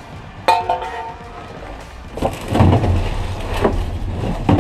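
Rummaging through a dumpster: one sharp knock with a brief ringing tone about half a second in, then loud, irregular crinkling and rustling of packing paper as a plastic mannequin torso is handled and pulled out.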